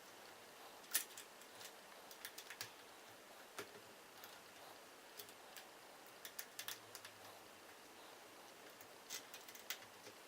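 Faint, scattered small clicks and taps of an Allen key working the bolts of a rubber grip's metal lock-on clamps, tightening them down, some in quick clusters of three or four.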